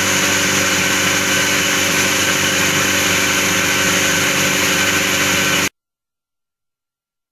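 A 120-litre vibratory bowl finishing machine running: a steady motor hum under a loud hiss from the parts and media churning in the bowl. The sound cuts off abruptly near the end.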